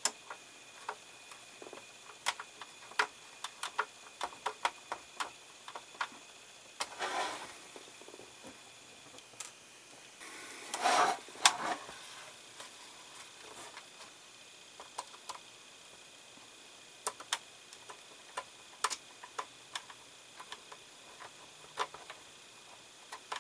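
Small hand screwdriver driving tiny screws into a scale model car's interior panel: scattered light clicks and ticks of the tool and parts, with two brief rustling handling noises about 7 and 11 seconds in.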